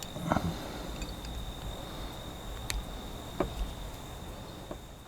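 Insects chirring steadily as a thin high tone, with a few light clicks and knocks from hands working fishing line through a folding knife's lanyard hole, the loudest about a third of a second in and another about three and a half seconds in.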